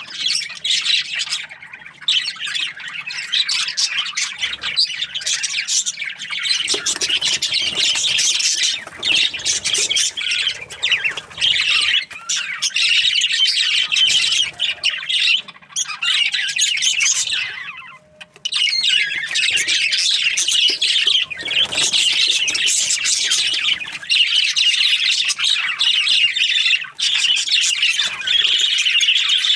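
Several budgerigars chirping in a dense, continuous high chatter, with a brief lull about eighteen seconds in.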